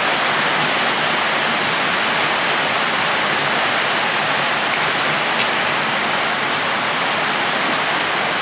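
Steady, loud hiss of heavy rain drumming on a corrugated metal roof.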